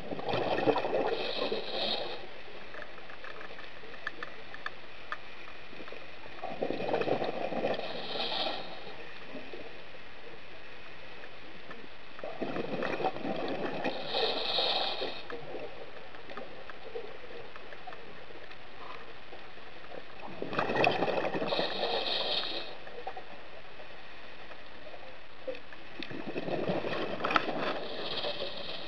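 Scuba diver breathing through a regulator underwater: a gurgling rush of exhaled bubbles comes five times, about every six to seven seconds, each ending in a brief hiss.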